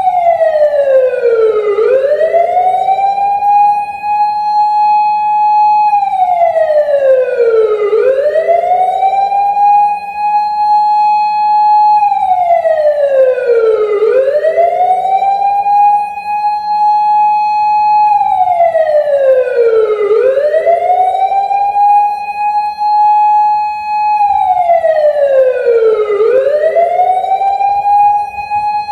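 Osaka Siren MK-10 electronic siren amplifier sounding a wailing siren. The pitch rises, holds high for about two seconds, then slides down again, repeating about every six seconds.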